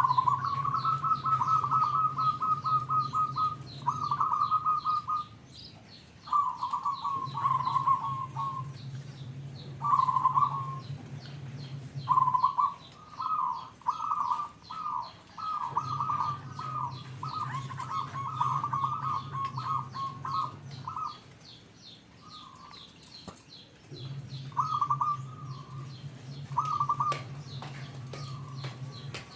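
Zebra dove (perkutut) calling in repeated phrases of fast, rattling notes, with short pauses between phrases. A low steady hum comes and goes in several stretches.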